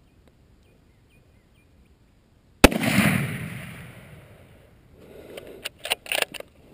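A single .243 rifle shot about two and a half seconds in, its report rolling away for about two seconds. A quick run of sharp clicks follows as the rifle is handled.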